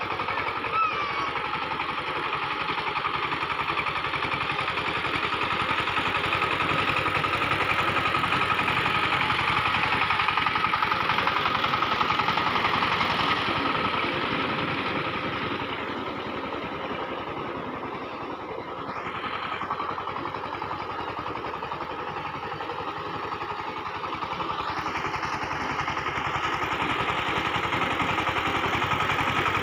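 Single-cylinder diesel engine of a 20-horsepower SIFANG power tiller running steadily under load as its blades churn a flooded paddy field into puddle. It fades somewhat about halfway through as the tiller moves off, then grows louder again as it comes back near.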